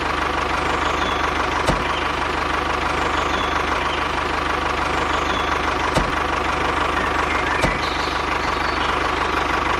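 An engine idling steadily, with a few single clicks on top.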